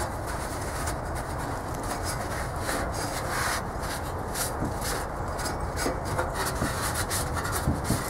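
Cloth rag wiping and scrubbing the sheet-metal housing of a squirrel-cage blower fan, an irregular run of quick rubbing strokes, with a light knock near the end.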